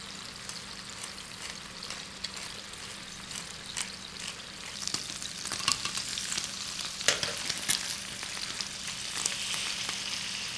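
Chicken breasts searing in hot olive oil in a skillet: a steady sizzle and crackle of frying, broken by a few sharp clicks of metal tongs against the pan. The sizzle grows denser near the end.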